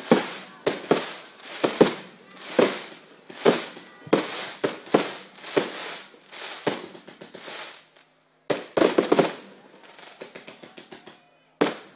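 Fireworks going off: a run of sharp bangs about one a second, each trailing off. After a brief dropout about eight seconds in comes a quick cluster of crackling reports.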